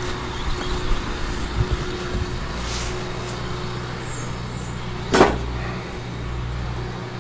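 A motor vehicle engine running steadily with a low hum, and a single sharp knock about five seconds in.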